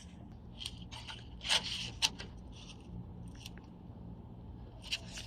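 Metal brake-pad retaining pins being worked through a Lexus LS460 rear brake caliper and pads: light metal scraping with a few small clicks.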